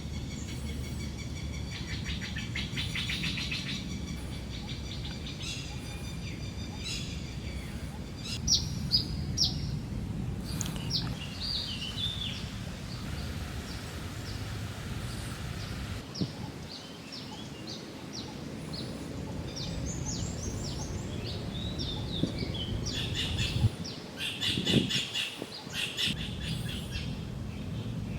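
Several birds calling and chirping, with a rapid trill in the first few seconds, over a low steady rumble.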